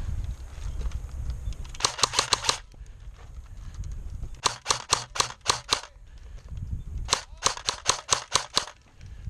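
Airsoft guns firing three rapid bursts of sharp cracks, about two seconds apart, each burst a string of six to eight shots.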